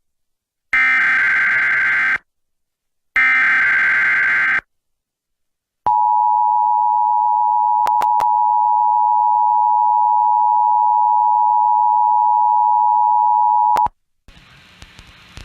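Emergency Alert System SAME header data bursts, two harsh warbling screeches of about a second and a half each, then the EAS two-tone attention signal, a steady dual-tone beep held for about eight seconds that cuts off abruptly. This sequence opens an EAS test alert. A faint hiss follows near the end.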